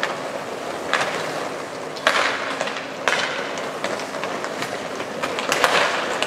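Inline skate wheels rolling on the rink floor in a steady rumble, with sharp clacks of sticks and puck about one, two and three seconds in and a quick cluster of them near the end.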